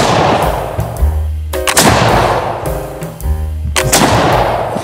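Three black-powder shots from a 20-gauge smoothbore muzzleloader, about two seconds apart: one at the very start, one just under two seconds in and one near four seconds. Each is a sharp report with an echo trailing off behind it, over upbeat background music.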